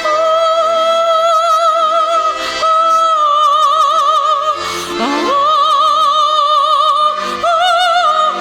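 A woman singing in an operatic style, holding long notes with wide vibrato, moving to a new note about every two and a half seconds, over steady instrumental accompaniment.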